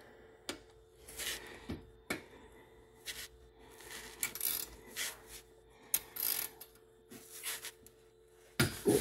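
Rustling and rubbing with scattered light clicks and knocks, from a person shifting about and handling things under the side-by-side's front end, close to the phone.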